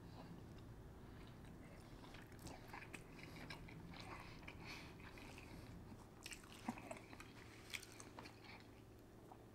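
Faint chewing: soft, scattered wet mouth clicks of someone eating, with a couple of sharper clicks late on.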